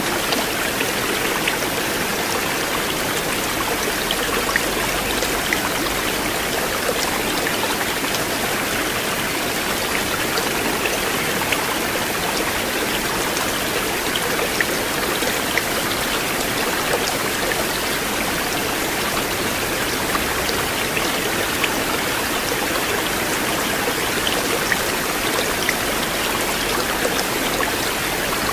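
River water flowing steadily, with small splashes and droplet ticks scattered through the rush.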